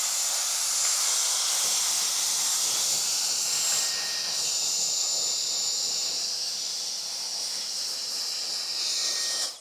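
Dyson Airwrap i.d. hair styler running: a steady rush of blown air with a thin, high-pitched motor whine. It cuts off suddenly at the very end as it is switched off.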